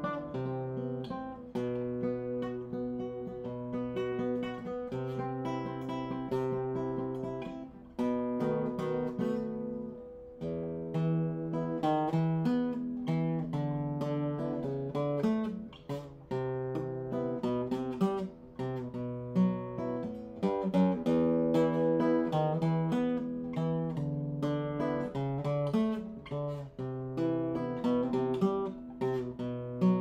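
A 1962 José de la Mora acoustic guitar being played: a continuous run of plucked single notes and chords, rich in overtones.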